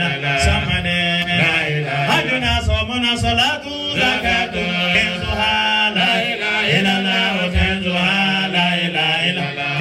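A man chanting a religious supplication through a microphone, in long held notes that waver up and down without a break.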